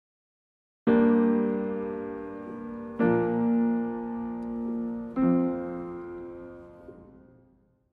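Three piano chords, each struck and left to ring out; the first comes about a second in, the others roughly two seconds apart, and the last fades away near the end.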